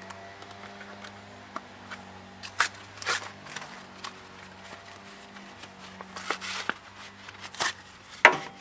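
Light rustling and scattered clicks as a rubber fan belt is handled with gloved hands, with louder brushes about three seconds in and near the end, over a faint steady low hum.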